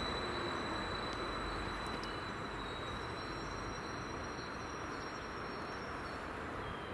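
BLS MUTZ double-deck electric multiple unit (Stadler KISS) running away down the line, its rolling noise slowly fading. A thin high tone from the train dims away in the first few seconds.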